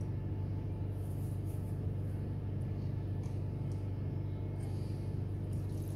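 Steady low background hum at an even level, with a faint light hiss about five seconds in.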